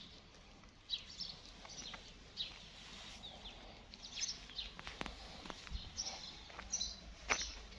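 Small birds chirping intermittently, short high chirps about every second, with a few sharp light clicks among them.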